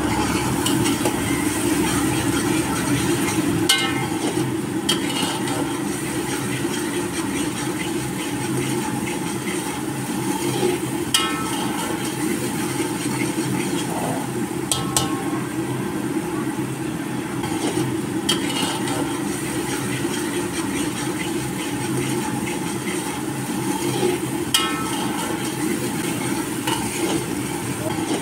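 Steel ladle stirring the bubbling contents of a large aluminium pot, with a sharp metallic clink every few seconds as it strikes the pot's side, over a steady low rumble and hiss of the cooking.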